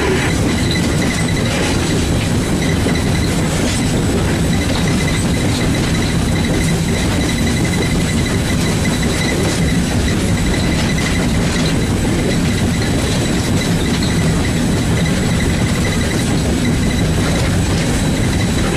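Steady running din heard from inside the cab of 2-8-0 steam locomotive No. 630 under way, with a faint steady high tone over it.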